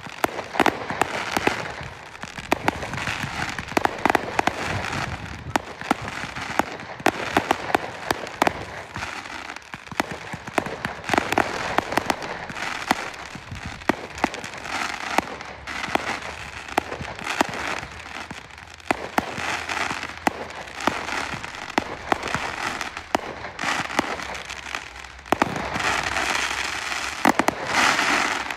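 Fireworks finale: a rapid, unbroken barrage of bangs and crackling, densest in a heavy burst near the end, then stopping suddenly.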